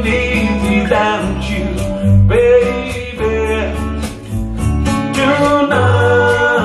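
A song with a male voice singing over guitar and steady bass, played through a pair of home-built three-way coaxial open-baffle loudspeakers with 15-inch Eminence bass drivers and Eminence PSD2002 compression-driver tweeters, heard in the room. The owner hears the midrange as a little hot, about 1.5 to 2 dB.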